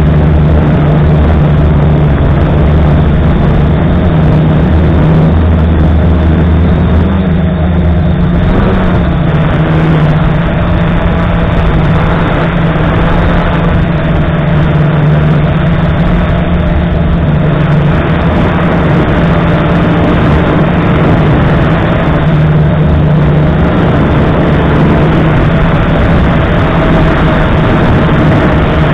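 F450 quadcopter's electric motors and propellers running loudly and steadily, heard close up from a camera on the frame; the motor pitch shifts slightly about eight seconds in.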